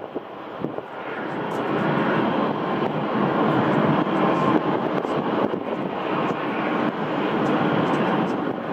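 Jet airliner engines running: a steady rushing noise that grows louder over the first two seconds and then holds.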